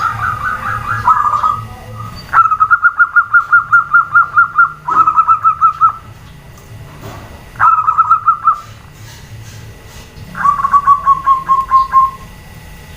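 Zebra doves (perkutut) cooing in rapid pulsed trills, about six pulses a second. The calls come in five bouts with short pauses between them, and the last bout falls slightly in pitch.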